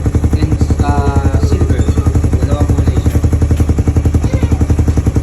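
Motorcycle engine idling through a Smok power pipe aftermarket exhaust, a steady fast pulsing beat at an even pace.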